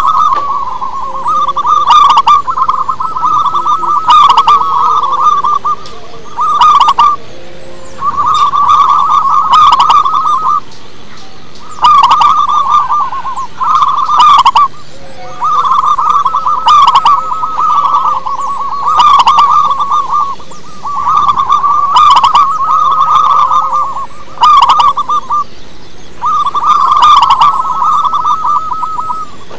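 Zebra dove (perkutut) singing: a loud, rolling trilled coo repeated over and over in phrases of one to two seconds, each followed by a short pause.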